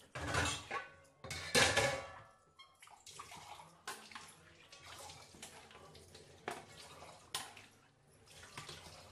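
Thick fish curry gravy simmering in a pan, bubbling and popping irregularly. There are a few louder gurgling bursts in the first two seconds, then steadier small pops.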